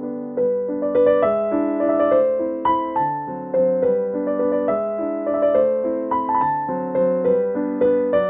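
Background music: a piano-like keyboard playing a gentle melody over chords, notes struck and fading in a steady, even pattern.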